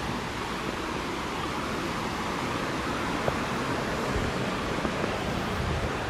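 Steady rush of a stream's flowing water below a waterfall, an even hiss with no breaks.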